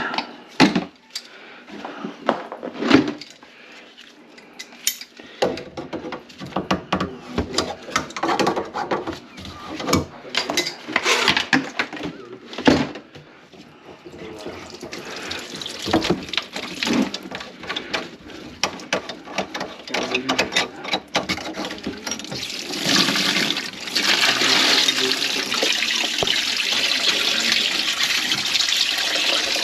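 Scattered knocks and clatter of work at a kitchen sink, then water running steadily into the sink from about three-quarters of the way in.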